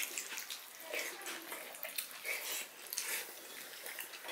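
Two people eating rice by hand: wet chewing and mouth smacks, with fingers working the rice on ceramic plates, heard as a run of short, irregular clicks and smacks.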